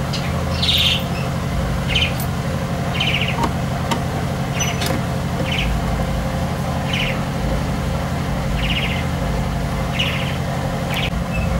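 A small bird chirping over and over, short high chirps about once a second, over a steady low hum.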